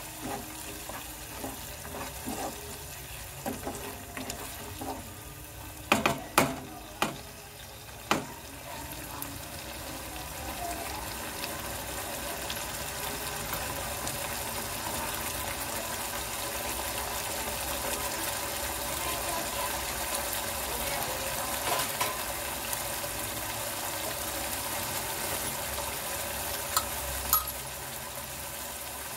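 A spatula stirring and scraping onion-tomato masala paste in a nonstick kadai, with a few sharp knocks on the pan about six to eight seconds in. After that the masala sizzles and bubbles steadily as it cooks, a hiss that grows slightly louder.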